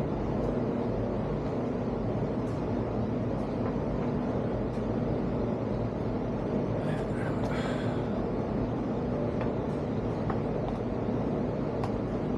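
Small clicks and, about seven seconds in, a short run of metallic clinks and scraping from hand tools working the hinge screws of a Dometic camp fridge lid. A steady low hum runs underneath.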